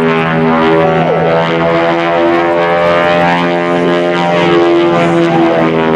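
Twin radial engines of a Beech 18, two 450-horsepower Pratt & Whitney R-985s, running at power as the plane flies an aerobatic pass. The sound is a loud, steady drone made of several engine tones that shift slightly in pitch.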